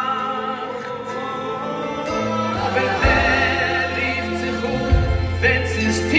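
Live Jewish music performance: male vocals sung into microphones with a backing men's choir and a live band that includes violin. Sustained sung notes over the accompaniment, with deep bass notes coming in about three seconds in.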